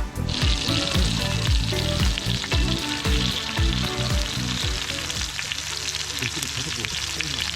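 Food frying, a steady crackling sizzle, over background music with a beat that thins out about two-thirds of the way through.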